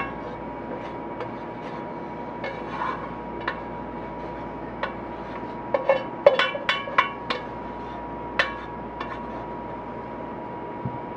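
Spatula scraping and tapping against a metal pot as thick cherry pie filling is scraped out into a pie pan: scattered sharp clinks and knocks, with a quick run of them about six to seven seconds in.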